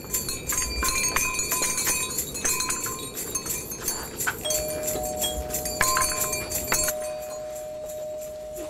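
Jingle bells shaken in bursts of jingling, with a steady held tone that starts about halfway through.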